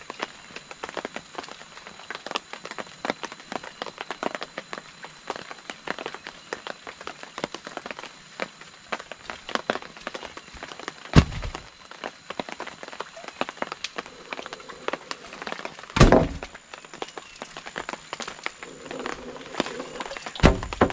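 Rain pattering steadily on the tarp and forest leaves. Three heavy wooden thuds, about halfway, a few seconds later and just before the end, as freshly split timber planks are dropped onto the ground.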